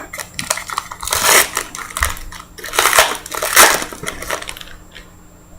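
Trading-card packaging and cards being handled: an irregular run of crinkles, crackles and rustles, with louder clusters about a second in and around three seconds in, then quieter near the end.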